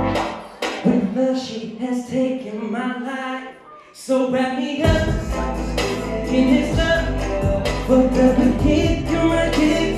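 A male singer singing live into a microphone over a DJ's backing track. For the first few seconds the voice is almost alone; about five seconds in, a heavy bass beat drops in under it.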